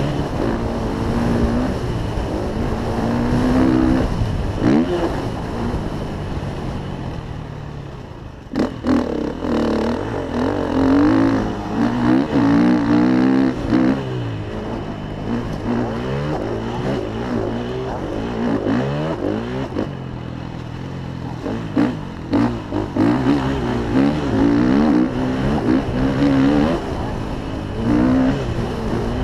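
Dirt bike engine heard from the rider's own bike, revving up and dropping back again and again as it is ridden through the gears, with a few sharp knocks along the way.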